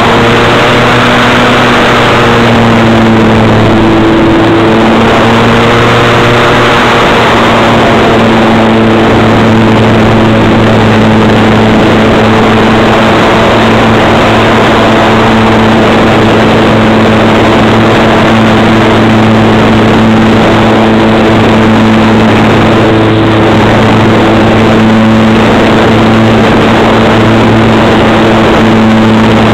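Electric motor and propeller of a Parkzone SE5a RC model plane heard through its onboard camera: a steady hum at a gentle cruise, its pitch shifting slightly in the first few seconds, under loud rushing wind.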